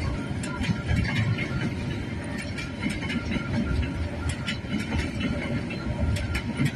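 Freight train of container wagons rolling past close by: a steady low rumble of steel wheels on the rails, with frequent irregular clicks and clacks from the wheels.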